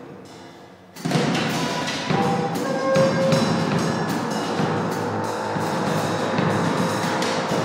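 Live noise improvisation: a drum kit played busily under dense electronic noise with a few held tones. It starts low and fading, then comes back in loud and sudden about a second in.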